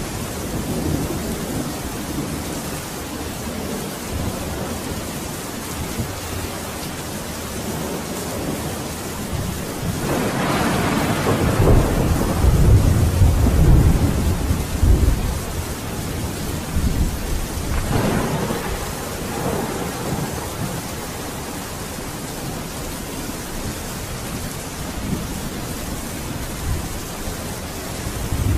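Steady rain with rolling thunder. The deepest, loudest rumble builds about ten seconds in and lasts several seconds, and a shorter roll follows near eighteen seconds.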